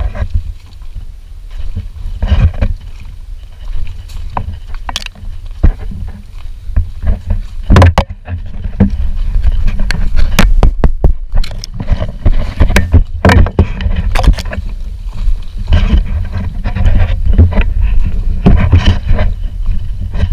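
A canoe being paddled in wind: a heavy wind rumble on the action camera's microphone, with irregular paddle splashes and knocks against the hull, getting louder about halfway through.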